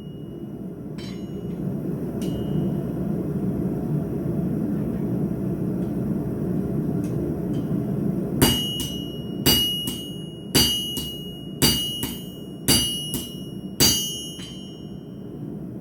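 Hammer striking hot steel on an anvil: about halfway through, six ringing blows come about a second apart, each followed by a lighter rebound tap. Under them is the steady roar of the forge.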